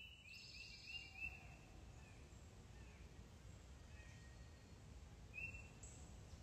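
Faint bird chirps over quiet outdoor background: a quick series of short high chirps in the first second or so, then one more near the end.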